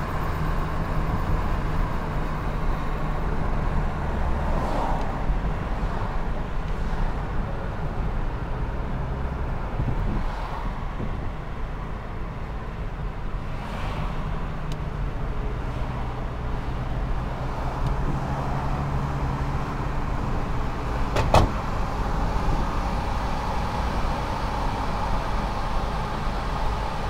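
Car engine and road noise heard from inside the cabin while driving at steady speed, a low hum that shifts a little in pitch as the car speeds up and slows. A single sharp knock about three-quarters of the way through.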